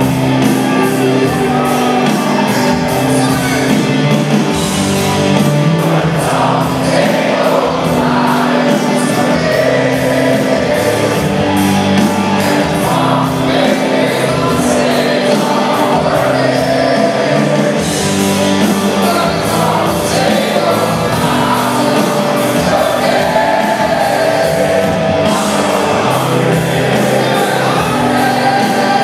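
Live rock band playing in a concert hall, a male lead singer's voice carrying the melody over guitars and a steady beat.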